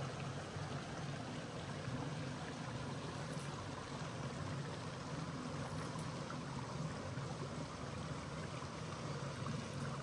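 Steady sound of running water, with no distinct strokes or breaks.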